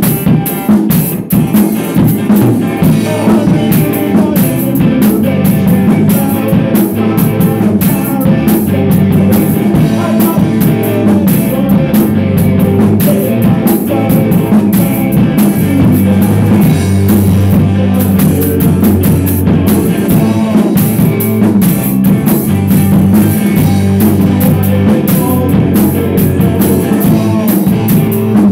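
Rock band playing a song live: a drum kit close by, beating steadily with cymbals, over electric guitar and sustained low bass notes.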